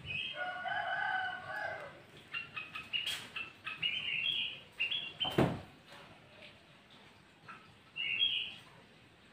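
Sooty-headed bulbul calls: a longer call of about a second and a half at the start, then a run of short whistled notes, and one more short phrase near the end. A single sharp knock comes about five seconds in.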